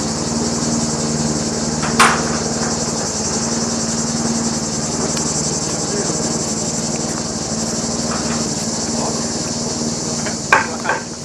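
Steady high-pitched chorus of insects with a low steady hum beneath it. A single sharp knock comes about two seconds in, and a few more knocks near the end, while a timber roof beam is set on the block wall.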